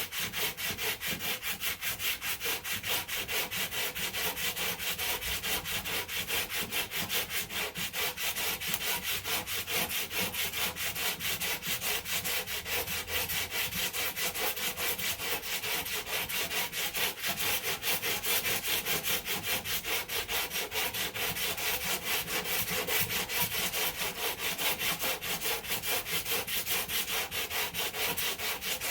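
100-grit sandpaper on a hand block sanding cured body filler in quick, even back-and-forth strokes. This is the block-sanding stage of a small dent repair, where the filler's high spots are knocked down to the panel's contour.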